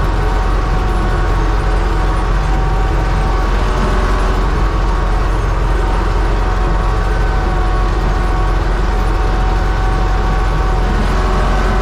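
U650 tractor's diesel engine running steadily while pulling a plough, with a mechanical rattle of gears and metal parts over the engine drone.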